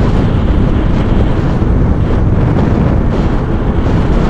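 Steady wind noise buffeting the microphone of a moving motorcycle.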